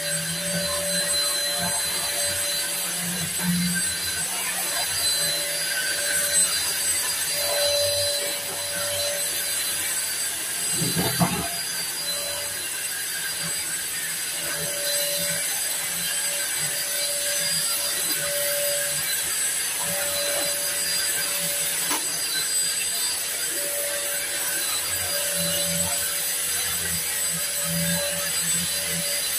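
Cordless stick vacuum cleaner running steadily, its motor giving a constant high whine over a hiss. There is a single short knock about eleven seconds in.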